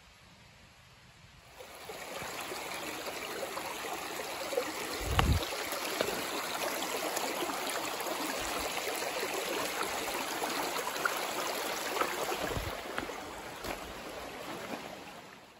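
Steady rush of a stream running over rocks, starting about a second and a half in and cutting off abruptly at the end, with two short low thumps midway.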